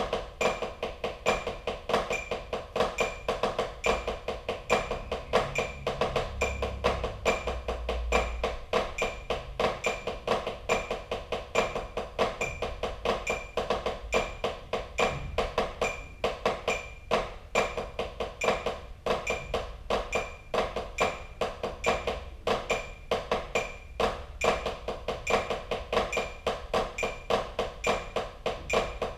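Drumsticks striking a practice pad in a fast, even, unbroken stream of strokes: a sticking exercise played without a break.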